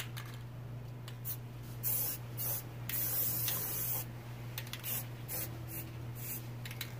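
Aerosol spray paint can hissing in several short spurts from about two seconds in, the longest about a second, as black paint is sprayed around round lid stencils to make the background of a spray-paint-art space scene.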